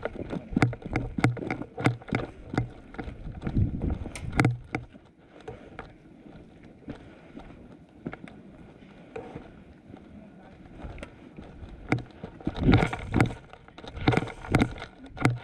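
Footsteps on cracked asphalt with the rifle and gear knocking and rattling as a player walks, in quick steady steps for the first four seconds or so, then quieter and sparse, then a few louder knocks and scuffs near the end.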